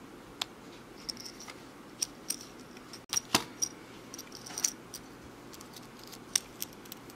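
Small metal clicks and jingles of a steel split ring and a fishing hook as fingers work the hook onto the ring. Scattered sharp clicks, the loudest about three seconds in.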